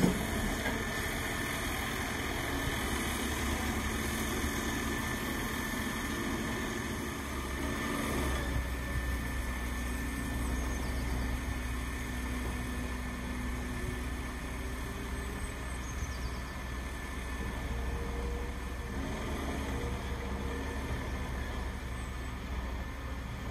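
Diesel engine of a road-rail excavator running steadily as it travels along the railway track, with a low rumble under it.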